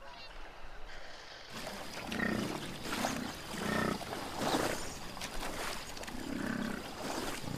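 American bison grunting and bellowing: a series of short, low calls starting about two seconds in, several of them roughly a second apart, with a gap before a last call near the end.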